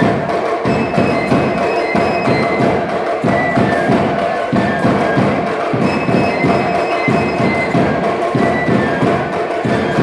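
Tabasco tamborilero music: a reed (carrizo) flute piping a melody of short high notes over regular beats of the tamboril drums.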